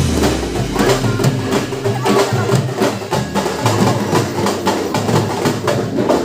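Music with a busy percussion beat of sharp, regular strokes over sustained pitched tones.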